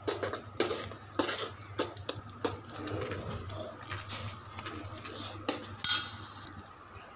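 Metal slotted spoon scraping and clinking against an aluminium pan in irregular strokes as rice flour is stirred into boiling jaggery water to keep it from lumping. A steady low hum runs underneath.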